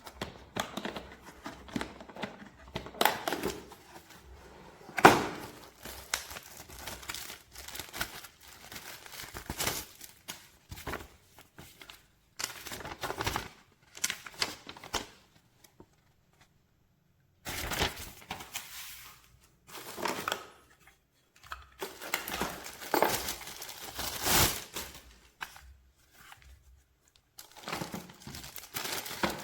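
Plastic wrapping crinkling and rustling as it is handled, with a few sharp knocks, in uneven spells broken by a short silence around the middle.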